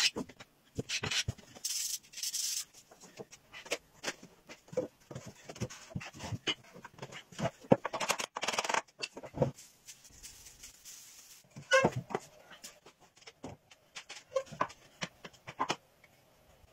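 Woodworking sounds in quick succession: a few strokes of a wooden hand plane shaving wood in the first seconds, then scattered knocks and taps of wooden stool parts being fitted together, with a brief squeak about twelve seconds in.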